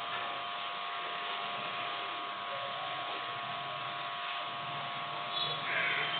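Room tone: a steady background hiss with a few faint constant humming tones.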